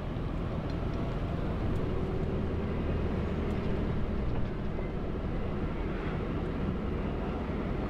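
Steady low rumble of a vehicle engine running.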